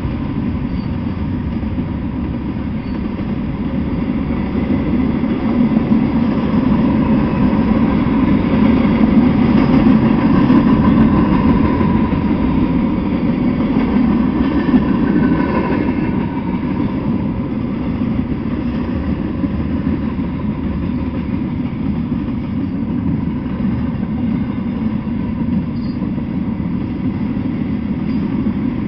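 Freight train cars rolling past on the rails: a steady noise of steel wheels on track that grows louder about a fifth of the way in and eases back a little past the middle.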